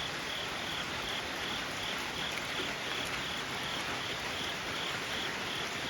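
Steady rain hiss with an insect, cricket or katydid, chirping in an even rhythm about two to three times a second.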